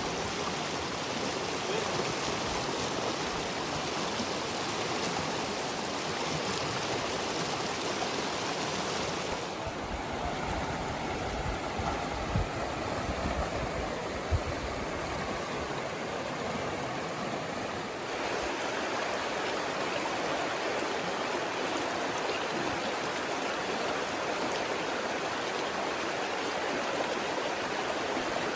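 Creek water running steadily, an even rushing hiss, with two brief knocks about halfway through.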